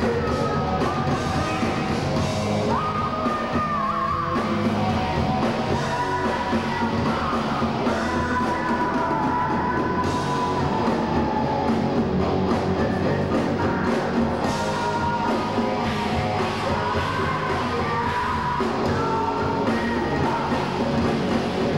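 Heavy metal band playing live: distorted electric guitars, bass and drums, with a singer belting long, high held notes over them.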